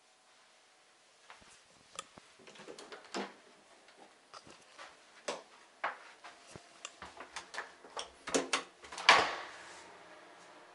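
A string of light clicks and knocks, then a bathroom door being opened about nine seconds in, with a short rattle and swish that is the loudest sound.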